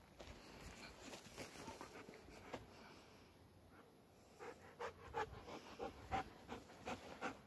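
A black-and-tan shepherd-type dog panting softly. Its quick breaths come about three a second in the second half.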